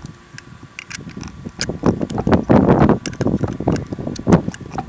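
Strong gusting wind buffeting the microphone, swelling loudest about halfway through, with scattered short clicks and knocks throughout.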